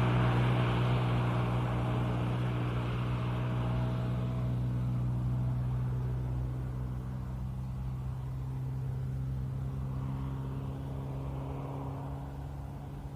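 Old car engine running with a steady low hum, growing steadily fainter.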